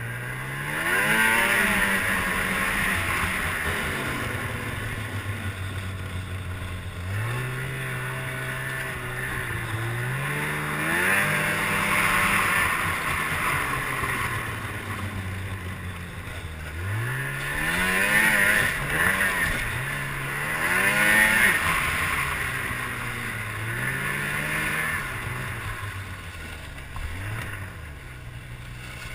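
Two-stroke twin engine of a 2007 Ski-Doo MXZ 600 XRS snowmobile under way, revving up and easing off again and again as the throttle is worked, over the steady hiss of the track and snow. The hardest pulls come a little past the middle.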